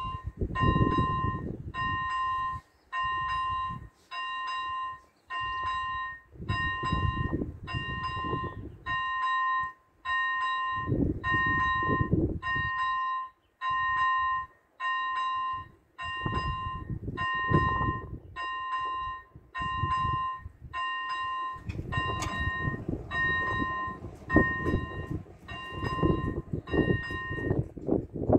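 Railway level-crossing warning bell ringing one clear tone about once a second, the signal that a train is approaching. The strokes stop near the end. A low rumbling noise comes and goes underneath.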